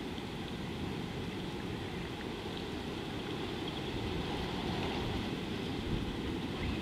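Wind rumbling on an outdoor microphone, a steady low rumble with a fainter hiss, and a few faint high chirps.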